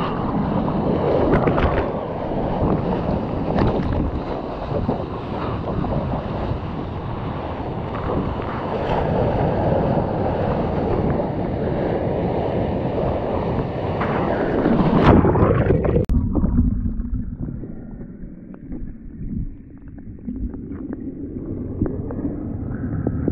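Seawater rushing and splashing right against a surfer's GoPro at the waterline, with wind buffeting the microphone. About two-thirds of the way through, the sound suddenly turns muffled and quieter as the camera is awash.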